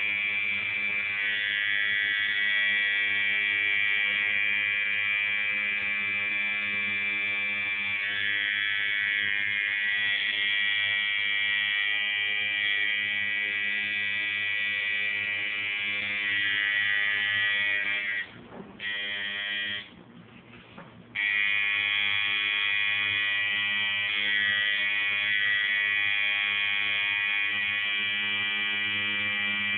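Electric tattoo machine running with a steady buzz, stopping briefly twice about two-thirds of the way through and starting up again.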